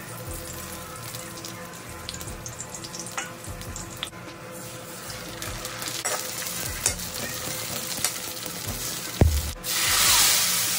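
Vermicelli frying in hot fat in a kadhai, a steady crackling sizzle with scattered clicks from stirring. Near the end there is a sharp knock, then milk is poured into the hot pan and a loud hissing sizzle surges up and slowly fades.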